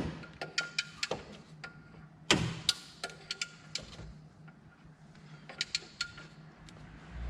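Ratchet wrench clicking in short irregular runs while tightening the lower 12 mm alternator bolt, with a louder metal knock about two seconds in.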